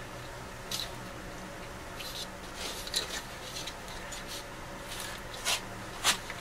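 A few light clicks and scrapes of a plastic refrigerator drawer frame being handled while its epoxy-glued crack is checked, over a steady low hum.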